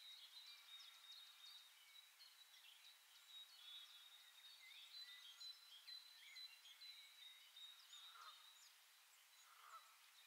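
Faint birdsong: many short chirps, whistles and quick trills from several small birds, over a thin steady high note.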